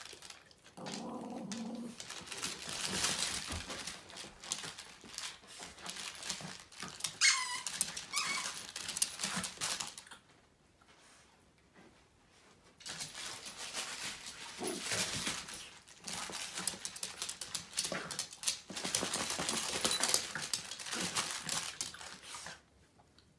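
A small dog playing with a plush toy: rustling and crinkling as it mouths and tugs the toy, broken by a pause of a few seconds near the middle. Two short rising squeals come about a third of the way in.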